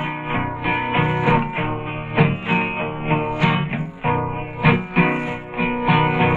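Instrumental guitar break in a song, with no singing: a guitar played alone, notes plucked and strummed in a steady rhythm.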